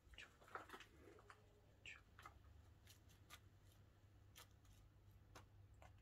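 Near silence, with a low steady hum and a few faint, scattered clicks and soft rustles.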